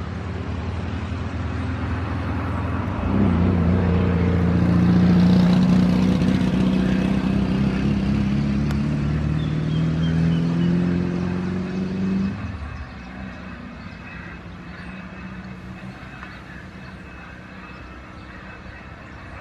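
Airbus A320 jet engines running as the airliner taxis, a steady jet whine over a low rumble. The power rises about three seconds in, holds with the pitch creeping up, then drops back sharply about twelve seconds in to a quieter idle.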